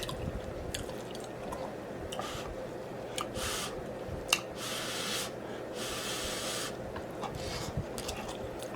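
Close-miked wet eating sounds: chewing and smacking, with a few sharp clicks and four short hissy, wet bursts in the middle.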